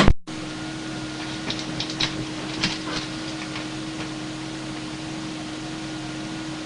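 CB radio receiver hissing on an open channel with a steady hum. There is a brief click and dropout at the start, and faint crackles of weak distant signals come in between about one and a half and three and a half seconds. Skip conditions are poor and the far stations are not getting through.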